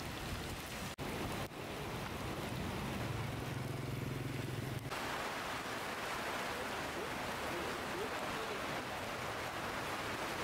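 Heavy rain pouring in a steady hiss, with a vehicle's low engine hum for a couple of seconds in the middle. About five seconds in it changes abruptly to a louder, brighter hiss of rain on a tarpaulin tent.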